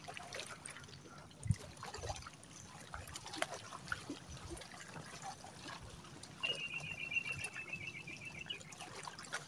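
Shallow seawater lapping and trickling faintly around a wader, with scattered small splashes and clicks. A high, rapid trill runs for about two seconds in the second half.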